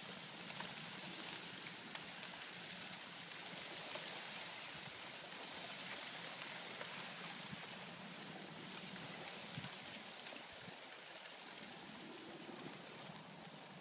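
Lake Superior water washing among ice-crusted shoreline rocks and slush ice: a steady fine hiss with many small ticks and crackles.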